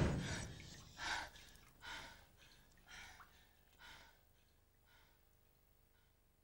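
A loud hit dies away, then four short breathy gasps come about a second apart, each fainter than the last. They are faint overall.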